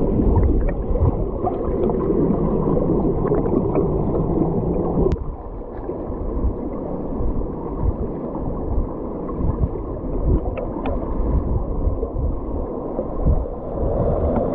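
Muffled, low gurgling and rumbling of stream water, with a brief click and a drop in level about five seconds in.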